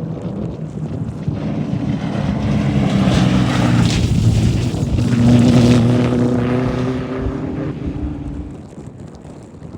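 Off-road race vehicle engine approaching, passing loudly at speed about five to six seconds in, then fading away.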